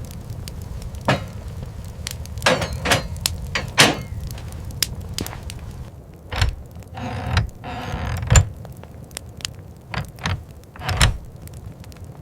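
A series of irregular knocks and thumps, about a dozen, spaced unevenly over a steady low rumble.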